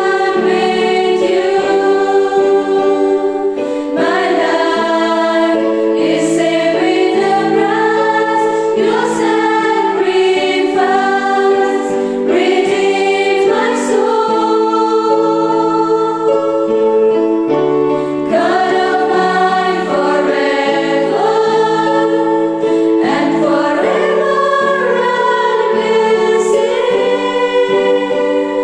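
Choir of young women singing a hymn together, holding long notes that change every second or two.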